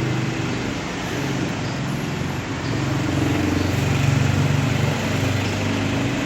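An engine running steadily with a low hum that shifts slightly in pitch around the middle, over a steady background hiss.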